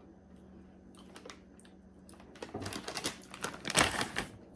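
Crunching of a crispy fried stuffed Indian snack being chewed: a quick run of crisp crackles starting about halfway through, loudest shortly before the end.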